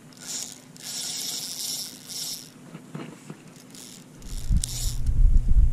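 Bursts of water splashing as a hooked bonefish thrashes at the landing net. About four seconds in, a loud low rumble starts on the microphone.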